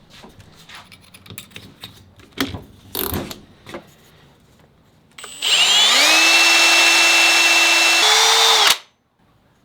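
A few scattered clicks and knocks of handling, then an electric drill starts about five seconds in with a rising whine. It runs steadily, steps up in speed near the end and stops abruptly.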